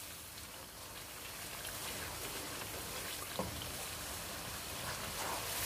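Onion-and-tomato masala frying in a wok over a high gas flame, a steady sizzle as it is stirred with a wooden spoon. One soft knock about three and a half seconds in.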